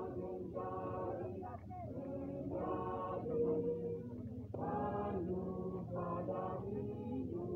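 Men's vocal group singing masamper, the Sangihe group-singing tradition, several voices together in phrases a second or two long.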